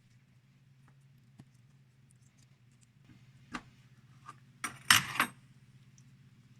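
Metal dissecting instruments clinking against each other or a hard surface: a few separate clicks, then a brief metallic clatter about five seconds in, over a steady low hum.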